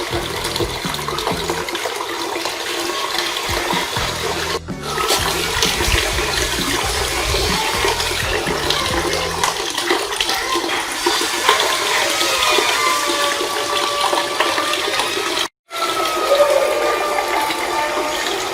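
Water pouring and splashing steadily down a small handmade cement tabletop waterfall, with faint music behind it. The sound breaks off for an instant twice.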